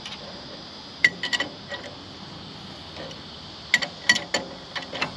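A spanner and bolts clinking against a steel trailer coupling being fitted: a cluster of sharp metal clinks about a second in, and more, the loudest, about a second before the end.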